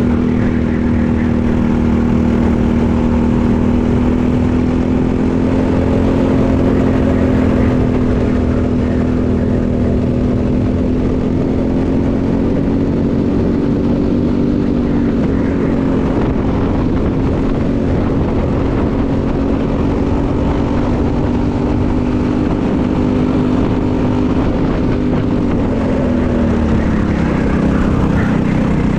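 Briggs & Stratton LO206 single-cylinder four-stroke kart engine running near full revs, heard onboard at the driver's helmet. Its pitch holds steady, rises a little midway and dips briefly near the end.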